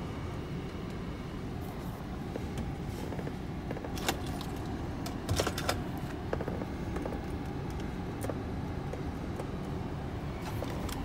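Cabin noise of a 2010 Mazda 3 driving slowly: a steady hum of engine and road noise. A few light clicks and rattles come about four seconds in and again around five and a half seconds.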